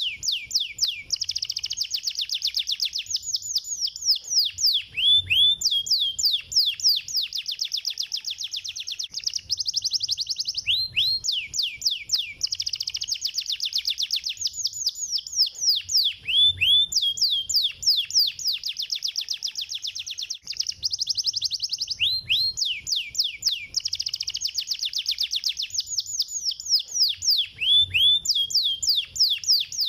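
Domestic canary singing continuously in fast, high trills, broken by runs of downward-sweeping whistled notes. The same song phrase repeats about every five and a half seconds.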